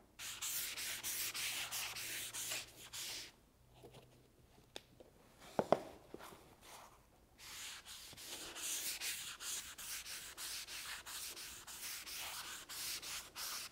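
Dry guide coat applicator pad rubbed in quick back-and-forth strokes over the faired fiberglass side of a sailboat cabin top, making a dry scrubbing hiss. The rubbing stops for about four seconds in the middle, broken by a single short knock, then starts again.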